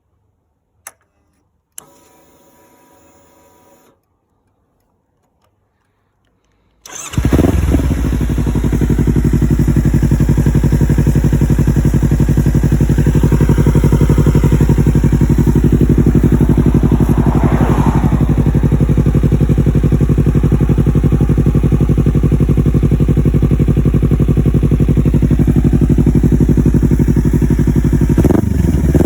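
Kawasaki Ninja 300 parallel-twin with an Akrapovic sport exhaust being started: two clicks and a faint hum, a few seconds of quiet, then the engine fires and settles into a loud, steady idle. The throttle starts to be blipped right at the end.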